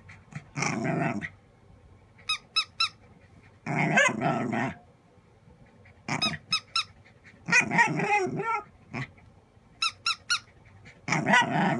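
Squeaky plush toy squeezed in quick sets of three or four squeaks, three times. A dog answers before and after each set with a vocal outburst about a second long, four in all.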